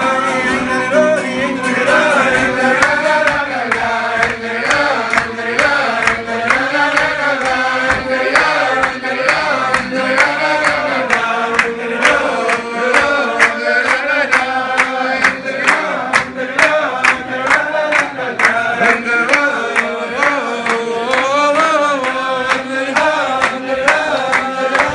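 Group of men singing a melody together to acoustic guitar, with hand-clapping keeping the beat; the clapping grows steadier and louder from about a third of the way in.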